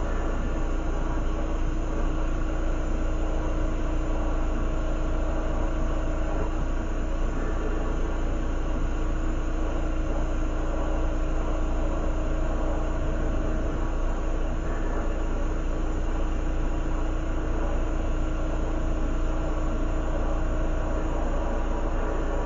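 Steady drone of a glass lampworking bench, a constant mechanical hum with a noisy rush under it, unchanging throughout.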